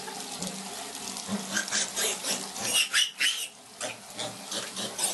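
Small black piglet squealing, a string of short high-pitched squeals about halfway through, while held under a running bathtub tap.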